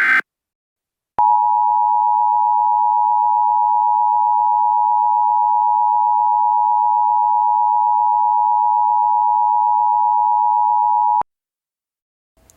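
Emergency Alert System attention signal: a loud two-tone alarm, two steady tones sounded together, held for about ten seconds and then cut off sharply. It starts about a second in, just after the end of a short, buzzy SAME data header burst.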